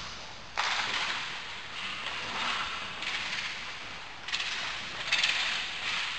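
Roller hockey game play: several sharp knocks, from sticks on the puck or the puck against the boards, each trailing off into a rushing hiss. The strongest come about half a second in and just after four seconds, with a quick cluster near five seconds.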